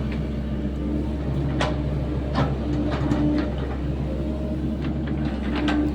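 Sany SY75C mini excavator's diesel engine running steadily, its note swelling and easing as the hydraulics work while it digs a trench. Several sharp knocks come through, one after about a second and a half and others later.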